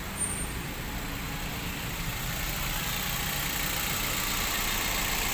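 Daihatsu Gran Max four-cylinder petrol engine idling steadily, heard with the engine bay open.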